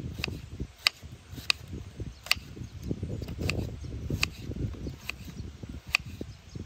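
Knife slicing a small red onion on a wooden cutting board: a sharp tap of the blade on the board with each slice, roughly one a second, over a low rumbling background.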